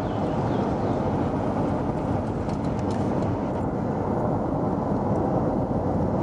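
Steady low rumble and rush of a moving vehicle: road and wind noise, even throughout.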